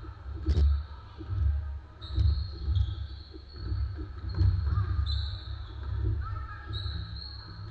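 Basketball game on a hardwood court: the ball bouncing and players' feet thudding, with high squeaks of sneakers on the floor and voices calling out.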